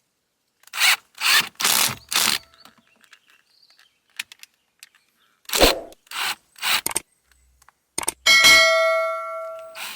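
Hand tools working a car's shifter bolt: a few short rubbing, scraping strokes, then a metal clang about eight seconds in that rings on with several clear tones for over a second.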